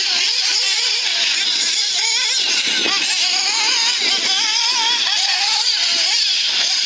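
Two nitro-powered RC off-road cars racing, their small high-revving glow engines whining and constantly revving up and down as the throttle is worked.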